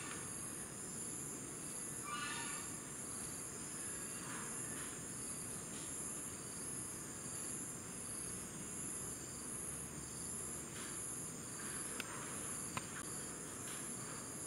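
Insect chorus: a steady, high-pitched buzzing that pulses at an even rate. A short animal call with stacked notes sounds about two seconds in, fainter calls come later, and two sharp clicks fall near the end.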